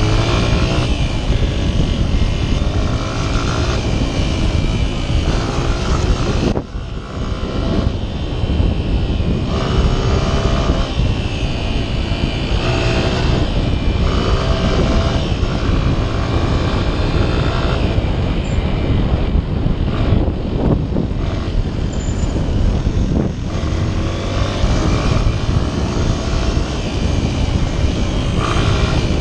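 Honda XR 125's single-cylinder four-stroke engine running under way off-road, its revs rising and falling as the throttle and gears change, over a heavy rumble of wind on the microphone. The level dips briefly about six and a half seconds in.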